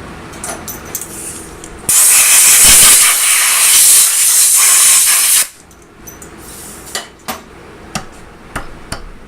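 Compressed-air blast hissing steadily for about three and a half seconds, the usual way chips are blown off a freshly milled part and fixture. A few light clicks and taps come before and after it.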